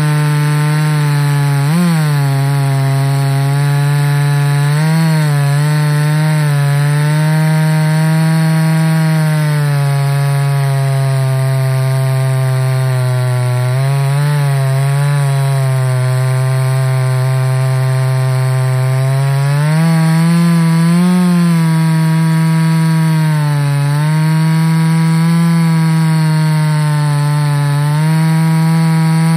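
Ported Husqvarna 288XP two-stroke chainsaw running flat out on an Alaskan chainsaw mill, ripping a slab lengthwise off an oak log. The engine's pitch dips and recovers several times as the cut is fed.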